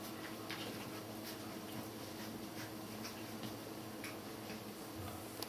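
Faint scuffling and a few soft, scattered clicks as Border Collie puppies move and play-wrestle on carpet tiles, over a steady background hiss and hum.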